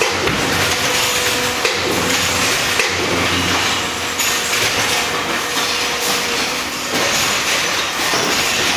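Triple-action hydraulic steel baling press running, a steady whine that drops away about two-thirds through, over continuous clanks and knocks of scrap metal.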